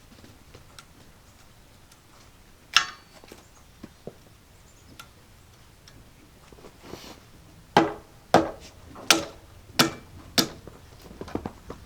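Hammer striking wood: a single blow about three seconds in, then five blows in an even rhythm about two-thirds of a second apart near the end.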